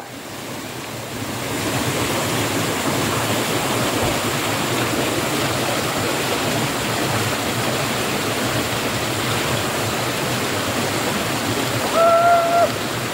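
River water rushing steadily, an even hiss of flowing water. Near the end, a short call held at one pitch for under a second rises above it.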